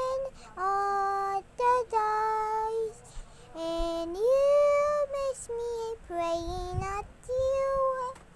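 A high voice singing a slow, wordless-sounding tune in long held notes, with a few rising slides from one note up to the next.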